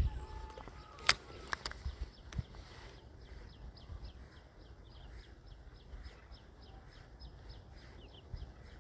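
A few sharp clicks, then from about three seconds in a small animal calling with a fast run of short, high chirps, about four a second.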